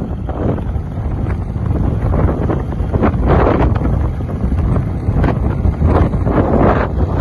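Wind buffeting the microphone in irregular gusts over a continuous low rumble.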